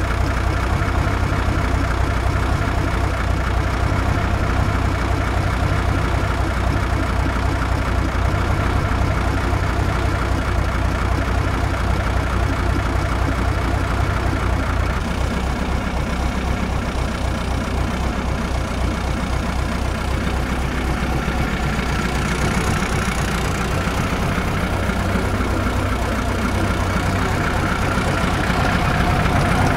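Cummins V504 naturally aspirated V8 diesel of a 1982 Ford Cargo 1517 tractor unit idling steadily through a nearly straight-piped twin exhaust.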